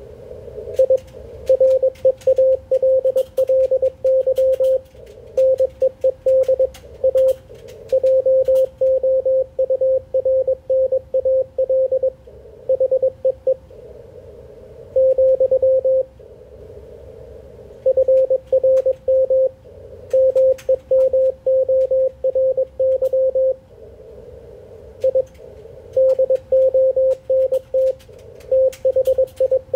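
Morse code (CW) on an HF ham radio: a single tone of about 500 Hz keyed on and off in characters and words, with longer pauses between groups. Between the characters, band noise hisses through the narrow CW filter, and there are a few faint clicks.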